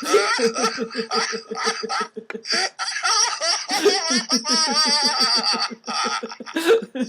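Two men laughing heartily on purpose, rapid rhythmic 'ha-ha' pulses, as in a laughter yoga exercise.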